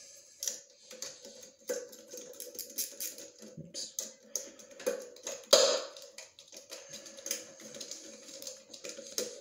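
Irregular small metal clicks and taps of a hand wrench and nut being worked on a small engine's ignition coil mount, with one sharper knock about halfway through.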